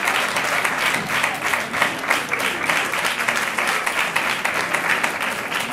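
Audience applauding, with dense, continuous clapping.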